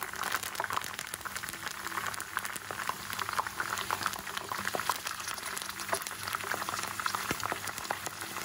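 Curry leaves, pandan leaves and green chillies deep-frying in hot oil: a steady, dense bubbling crackle.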